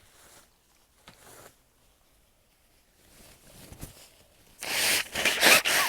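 A person blowing their nose into a tissue: a few quiet breathy sounds, then a loud run of several forceful blows near the end.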